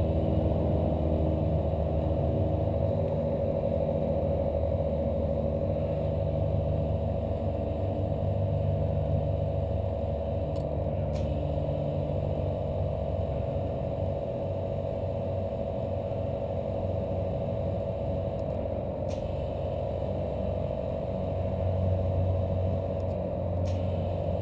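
ARB CKMTA12 12 V twin air compressor running steadily with a constant hum while it fills a tyre through the inflator hose, with a few faint clicks along the way.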